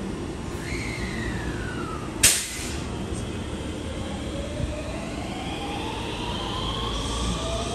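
JR West 223 series electric train running at the platform, with a steady rumble of wheels on rail. Its traction motors whine steadily upward in pitch over the second half as it accelerates. A falling whine comes early on, and a single loud sharp click comes about two seconds in.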